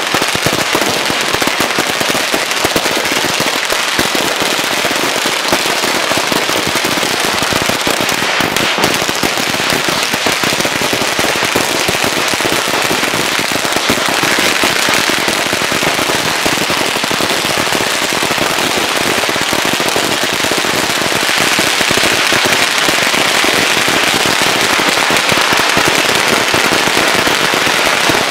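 A Liuyang 'Hindoe 7000' firecracker roll, a long three-layer string of nitrate crackers, burning through as a dense, unbroken crackle of rapid bangs. It is very loud throughout and grows a little louder in the last third.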